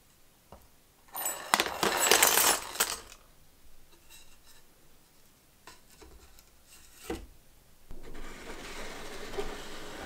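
Small metal pocket-knife parts clatter and clink as they are tipped off a piece of cardboard into a plastic tub, in a dense burst lasting about two seconds. A few single clicks follow, then softer handling and rustling near the end.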